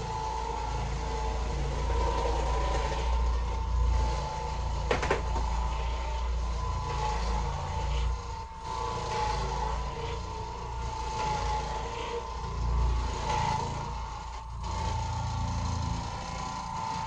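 Oreck Orbiter orbital floor machine running steadily, its pad scrubbing carpet; the motor gives a constant hum with a steady high whine. A single sharp click about five seconds in.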